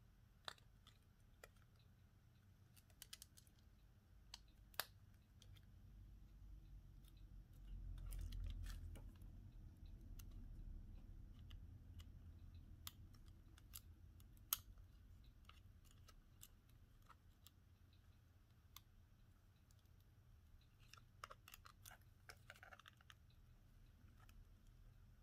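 Faint, scattered small clicks and taps from hand tools and phone parts being handled, with a low rumble swelling about eight seconds in and a quick run of clicks near the end.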